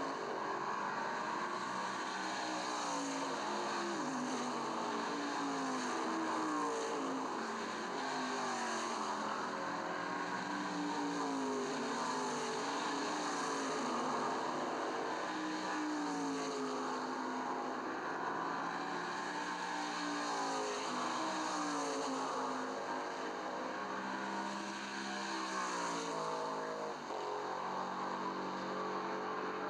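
Racing car engines running hard on a dubbed-in soundtrack, their pitch climbing and dropping over and over as they accelerate and shift. A steady hiss runs underneath.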